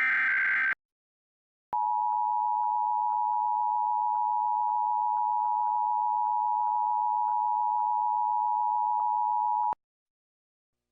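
Emergency Alert System tones for a required monthly test. A SAME data header burst, a harsh electronic screech, ends just under a second in. About a second of silence follows, then the EAS two-tone attention signal, a steady dual tone held for about eight seconds that stops abruptly.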